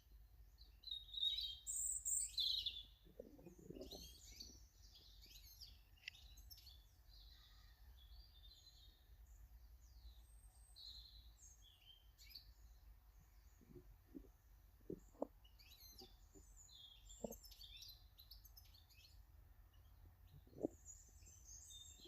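Faint chirps and calls of small garden birds, many short high notes, busiest in the first few seconds, with a few soft knocks scattered through.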